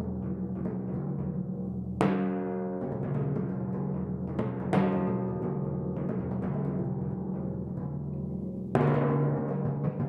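Four pedal timpani played solo with mallets: low drum tones ringing on continuously, cut through by sharp accented strokes about two seconds in, a quick pair near the middle, and another strong stroke near the end.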